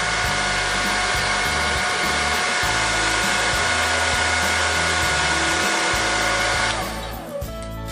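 A 2000-watt hair dryer with a diffuser, on full heat and low fan, running steadily with a whine over its blowing, heating the glue under a phone screen to soften it. It stops abruptly near the end.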